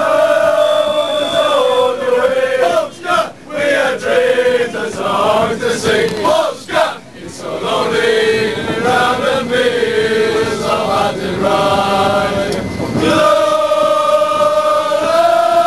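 A crowd of male football supporters chanting a song together in unison inside a packed tram. The singing has short breaks between lines, and a loud new line starts near the end.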